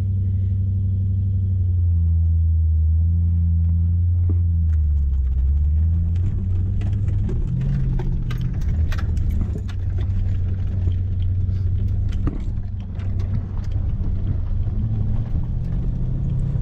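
Toyota Hilux's swapped-in Lexus 1UZ-FE V8 running as the truck pulls away and drives slowly, heard from inside the cab, with the engine note changing a few times in the first several seconds. From about halfway on, many short knocks and rattles come through the cab.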